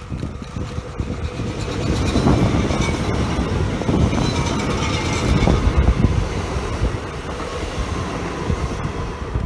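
A train running past on the line, its rumble and wheel noise growing louder about two seconds in and staying loud.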